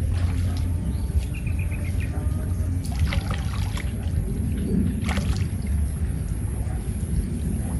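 Water splashing and trickling as a fishing net is set in the water, over a steady low rumble. A short run of faint high ticks comes about a second and a half in, and sharper splashes come about three and five seconds in.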